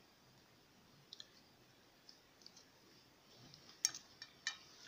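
A few faint clicks of a metal fork against a ceramic plate while food is served. The sharpest click comes near the end.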